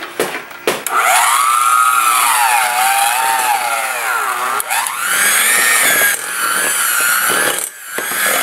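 Electric mixer running in stiff cookie dough, working in red food colouring; starting about a second in, its motor whine sags in pitch as it labours through the dough, then rises again.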